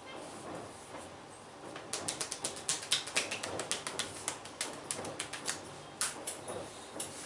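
Hand massage with percussion strokes: palms and fingers tapping and slapping quickly on the body. A fast run of sharp taps starts about two seconds in, about five or six a second, then breaks off, and a few more strikes follow near the end.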